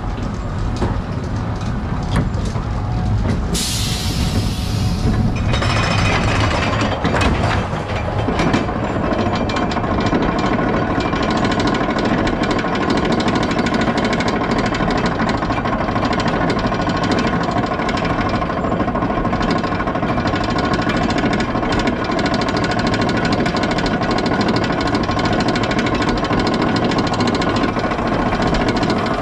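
E&F Miler steel roller coaster train climbing its chain lift hill, heard from aboard the train: the lift chain runs with a steady drone and the anti-rollback dogs make a fast, continuous clatter. A brief hiss comes about four seconds in as the train rolls out of the station.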